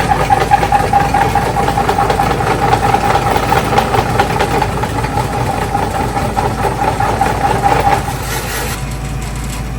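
Electric shave ice machine running and shaving a block of ice: a steady hum with a rough scraping. It stops about eight seconds in.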